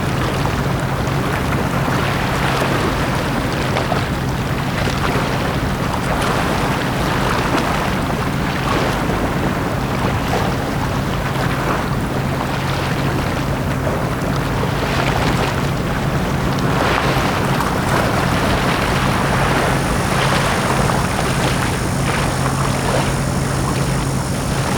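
Small sea waves washing on a beach in a steady wash with soft swells every couple of seconds, over a constant low drone. Near the end a faint high whine joins in.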